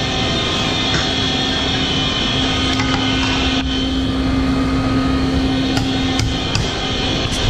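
Steady rushing roar of the stove and hot oil as chekkalu deep-fry in a kadai, with a low hum and a few sharp metal clicks from the utensils.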